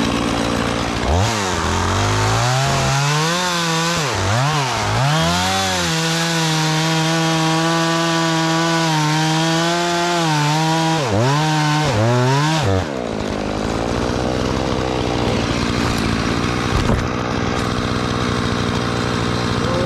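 Gas chainsaw revved up and down several times, then held at full throttle with its pitch dipping under load as it cuts through a tree being felled. About 13 s in it drops back to a steady idle.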